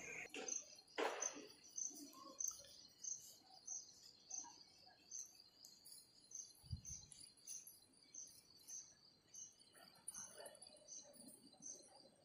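A small animal's high chirp, faint and evenly repeated about twice a second, with a soft knock about a second in and a low thump about halfway through.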